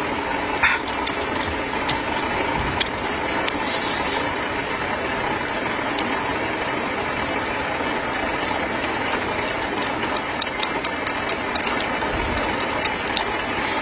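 Light clicks of chopsticks on dishes as someone eats, over a steady, even background rush.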